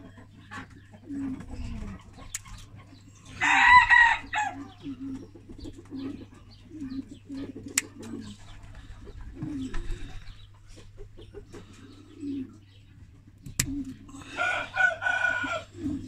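A rooster crowing twice, once about four seconds in and again near the end, with short low clucks in between. A few sharp clicks stand out.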